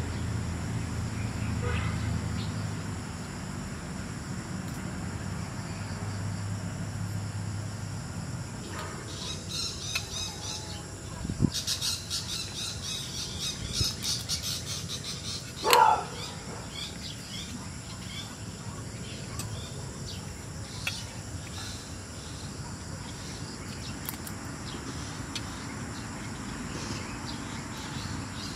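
Outdoor night-time-style nature ambience: a steady high drone of insects, with bursts of quick bird chirping and one loud short call about halfway through. A low rumble fades out about eight seconds in.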